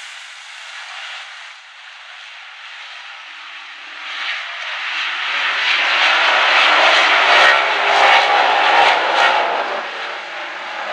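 A pack of dirt Late Model race cars, V8 engines at full throttle. Quieter at first, the noise grows loud from about four seconds in as the field comes past, and eases a little near the end.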